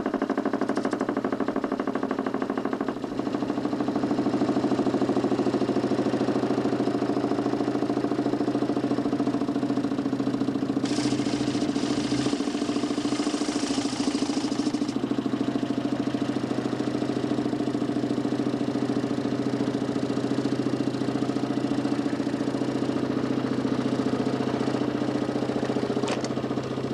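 DC motor spinning a 40 cm plywood Nipkow disc, running with a steady hum and a fast rattle that fades out about three seconds in. A burst of hiss is heard from about eleven to fifteen seconds in.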